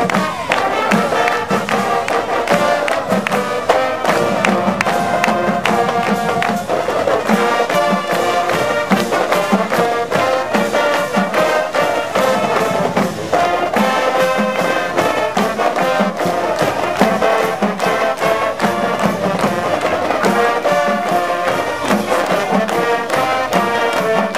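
High school marching band playing a brass tune over a steady drum beat.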